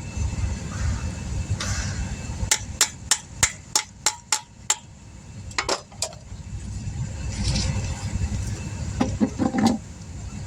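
Wheel-weight hammer tapping a balancing weight onto a wheel rim: a quick run of about eight sharp taps, then a few more, over a steady low rumble.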